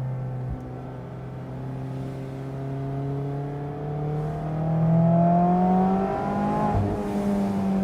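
Mazda MX-5 Miata four-cylinder engine through an aftermarket exhaust, pulling under acceleration with the revs climbing steadily, then dropping sharply about seven seconds in as it shifts up.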